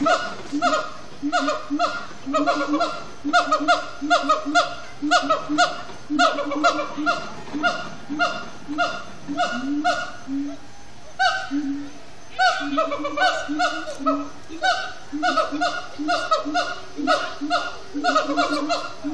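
Siamang gibbons singing: a long run of short, loud, pitched calls repeated about three times a second, broken just past the middle by a few rising whoops before the quick calls start again.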